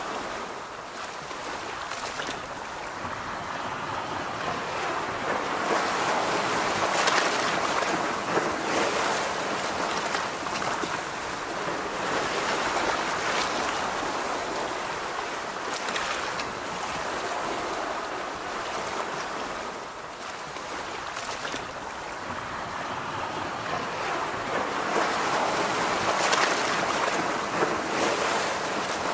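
Sea waves washing ashore, a continuous rushing that swells and ebbs over several seconds, with louder surges around a quarter of the way in, in the middle and near the end.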